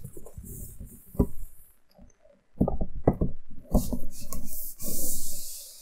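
A cardboard box knocking against a white shelf unit a few times, then scraping as it is slid into one of the shelf's compartments.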